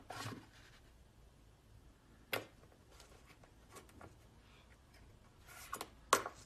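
Metal security gate rattling and its latch and handle clicking as a small dog hangs from the handle and works it: scattered sharp clicks and scrapes, with a cluster of louder clicks near the end as the latch gives and the gate opens.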